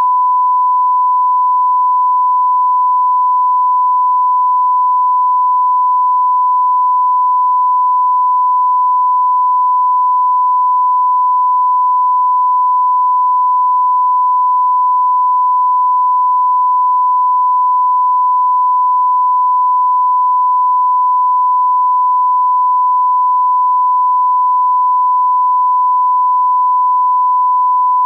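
A continuous electronic beep: a single pure, unwavering tone at one pitch around 1,000 Hz, like a test tone or censor bleep, with no breaks or changes in pitch or level.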